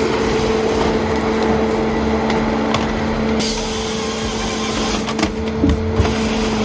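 Chainsaw engine running steadily at full throttle, a high unchanging whine over a rough noisy wash, with a few knocks near the end.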